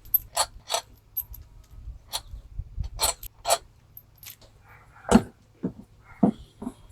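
Metal clicks and clinks as the Tecumseh engine's loosened cylinder head and head bolts are handled and lifted off the block, with a louder knock about five seconds in and a few duller knocks after it.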